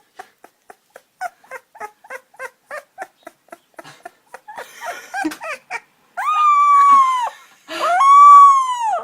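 Puppy yipping in quick short yelps, about three or four a second, then letting out two long howls of a little over a second each, the second one the loudest, each dropping in pitch as it ends.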